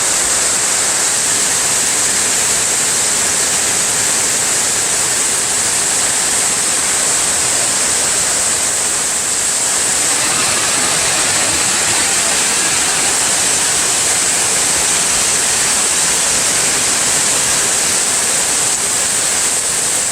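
Heavy rain falling on a ribbed metal roof: a loud, steady hiss that does not let up.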